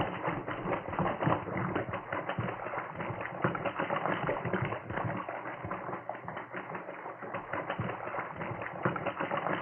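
Radio-drama sound effect of a swimmer splashing fast through water: continuous, irregular choppy splashing.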